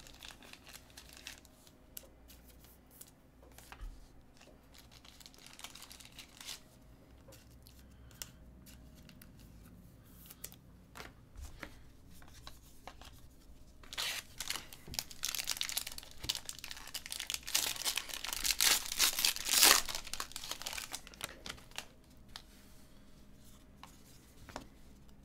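Silver foil wrapper of a trading card pack torn open and crinkled, in a loud crackling stretch about two-thirds of the way through, with light clicks of cards being handled before and after.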